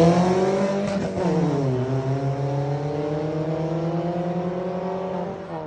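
Car engine accelerating hard from a drag-race launch: its pitch climbs, drops at an upshift about a second in, then climbs again more slowly as the sound fades with the car pulling away.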